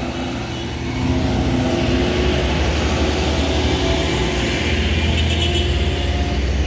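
Vehicle engines on a steep mountain road: a truck's diesel engine running close by while cars drive past. The rumble grows louder about a second in and stays steady.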